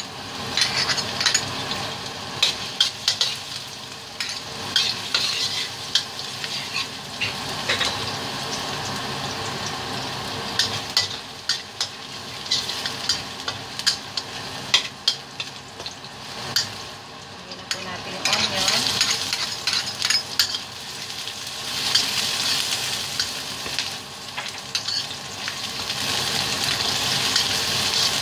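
Chopped garlic and onion sizzling in hot oil in a stainless steel wok, with a metal spatula repeatedly scraping and tapping against the pan as it stirs. The sizzle grows stronger over the last several seconds.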